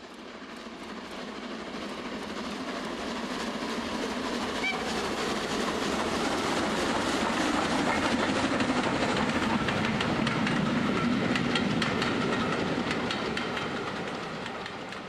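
Model railway train running past on the track, its wheels clicking rapidly over the rail joints. It grows steadily louder, holds for a few seconds, then fades near the end.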